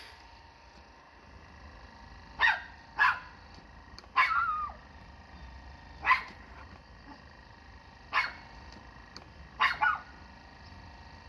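Dog barking: about seven short barks a second or two apart, the third drawn out into a wavering yelp and two coming close together near the end.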